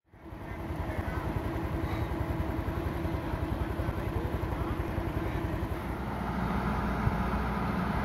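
Heavy diesel engine idling steadily with a fast low throb, fading in during the first second.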